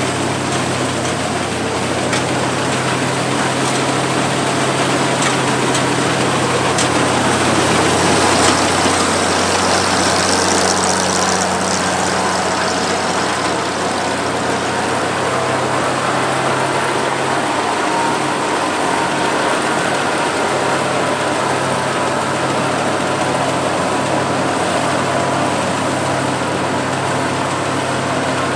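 Oliver 430 combine's Chrysler flathead six engine running steadily together with its threshing machinery while harvesting wheat, swelling a little about a third of the way in.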